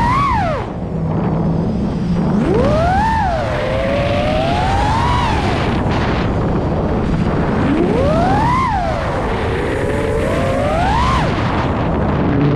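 FPV drone's motors whining, the pitch swooping up and down several times as the throttle is punched and eased, over a steady rush of wind and propeller noise.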